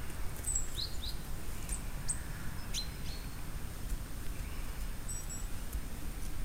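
Small woodland birds calling: a scattering of brief, very high chirps, some sweeping downward, over a steady low rumble.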